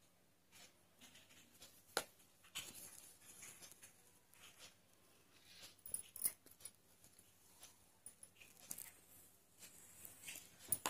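Faint rustling of cotton cloth held in a wooden embroidery hoop as it is handled and stitched by hand, with a few light clicks, the sharpest about two seconds in.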